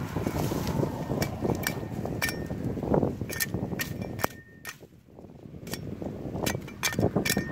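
A machete chopping at a thin sapling stem: a string of sharp strikes, amid rustling of leaves, branches and dry grass. The sound drops away for about a second just past the middle, then the rustling and strikes pick up again.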